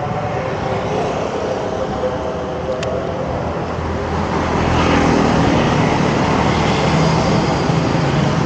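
Street traffic noise with motor scooters running past, growing louder about halfway through.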